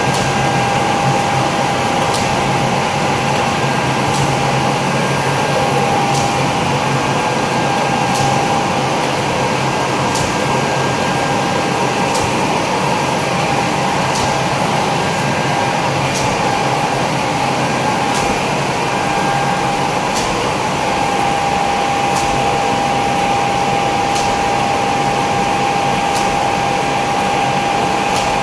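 Label finishing machine running steadily, a continuous mechanical hum with a steady whine and a faint tick about every two seconds as the label web feeds through its rollers.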